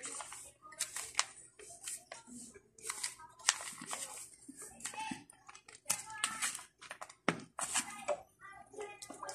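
Indistinct voices, a child's among them, with short sharp crinkling noises from a plastic sauce pouch being handled and squeezed.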